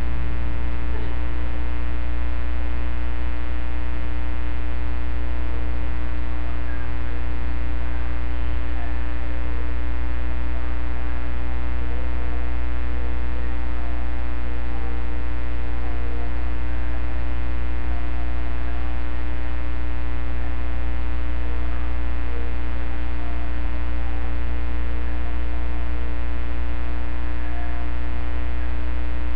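Loud, steady electrical mains hum with a dense stack of overtones that holds unchanged throughout.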